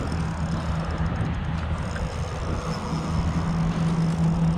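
A steady low motor hum over a rumble, its tone growing stronger about three seconds in.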